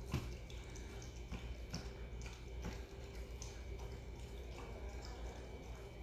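Faint, irregular wet clicks and smacks from dogs' mouths, over a low steady hum.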